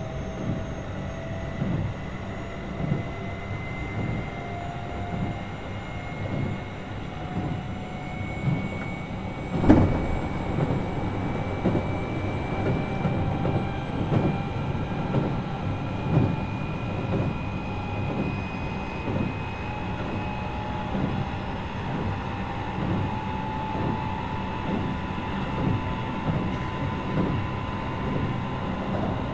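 Keio 8000 series train running, heard from inside the car. The whine of its Hitachi IGBT inverter and traction motors slowly rises in pitch as it gathers speed, over repeated knocks of the wheels on rail joints, with one sharp, loud knock about ten seconds in.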